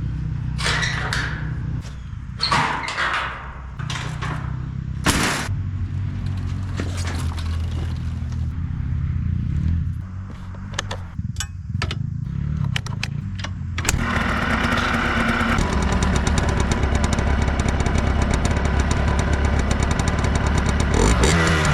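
Freshly rebuilt Yamaha Blaster's single-cylinder two-stroke engine running: a steady idle with sharp clicks over it, then, about two-thirds of the way in, suddenly louder and harder-running with a fast pulsing beat.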